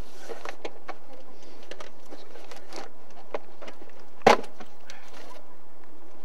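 Scattered clicks, taps and rustles of a gloved hand working at a car's wheel-arch liner, with one louder knock about four seconds in.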